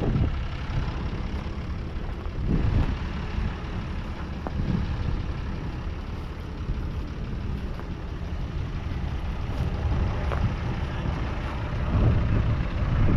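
A 1995 Deutz-Fahr AgroXtra 6.07's 5.7-litre six-cylinder diesel engine running steadily with a low rumble. It swells louder briefly about three seconds in and again near the end.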